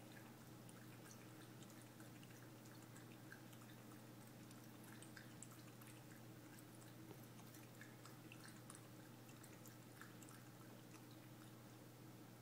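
Faint lapping of a Shetland sheepdog puppy drinking from a water bowl: many small, irregular wet licks and drips over a low steady hum.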